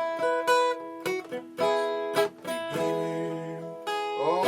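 Worship music between sung lines: an acoustic guitar strumming chords, with a singing voice coming back in near the end.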